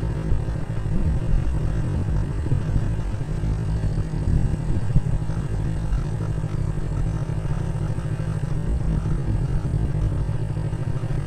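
Steady low rumble with wind buffeting the microphone as the camera travels forward along a narrow paved path, no distinct engine note or separate events standing out.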